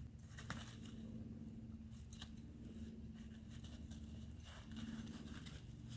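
Faint, scattered crackles of dry fallen leaves being stepped through, a few sharper clicks among them, over a steady low hum.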